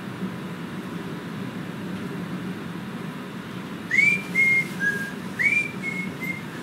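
Central heating boiler fan blowing air into a homemade waste oil burner while its starter fire burns, a steady rushing hum. About four seconds in, a short whistled phrase of six notes, in two groups of three, each group starting with a rising and falling note, is the loudest sound.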